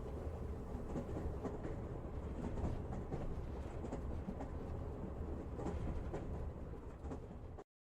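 Steady low rumbling noise with faint scattered clicks, after the singing has stopped; it cuts off abruptly into silence near the end.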